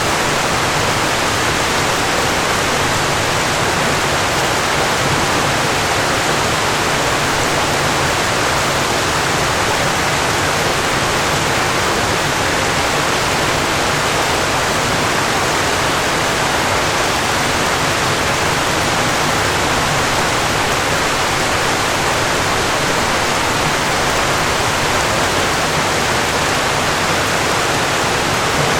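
Waterfall: water falling with a steady, even rush that does not change.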